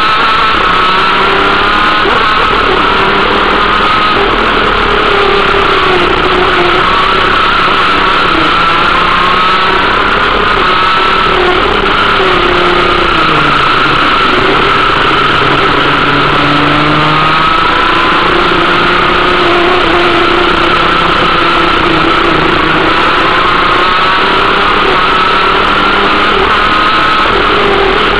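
125cc two-stroke kart engine running hard on track, recorded onboard, its pitch rising and falling over and over as the kart accelerates down the straights and backs off for corners. The deepest drop comes about halfway through, followed by a climb back up.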